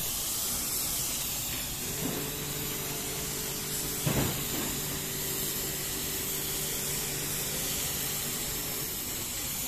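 Air-fed gravity spray gun hissing steadily as it sprays paint onto a car's body panel. A faint low hum joins about two seconds in, and there is one short knock near the middle.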